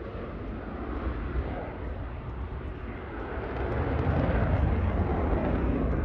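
F-16 fighter jet's single engine heard in flight as a steady jet noise, growing louder a little past halfway as the aircraft comes back around.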